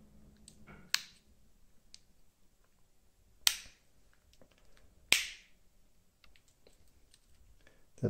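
Victorinox Spartan Swiss Army knife's tools being worked open and shut in soapy water, their backsprings snapping: three sharp snaps, at about one second, three and a half seconds and five seconds, with faint small clicks of the tools between them.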